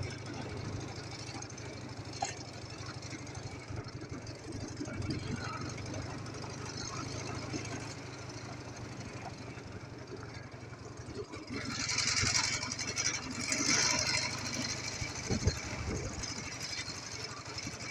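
Ural motorcycle's flat-twin engine running with a steady low throb. From about twelve seconds in a rushing hiss rises over it.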